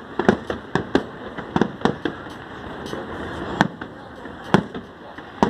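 Fireworks display going off: a quick, irregular run of sharp bangs in the first two seconds, then single, louder bangs about a second apart.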